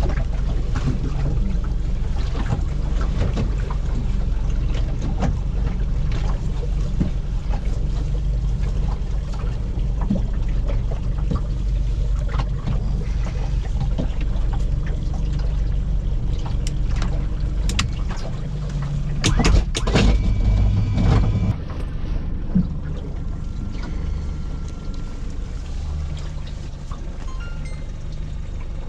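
Boat engine running steadily under way, with water and hull noise. About 19 seconds in there are a few sharp knocks and a louder surge, then the engine drops to a lower, quieter running note.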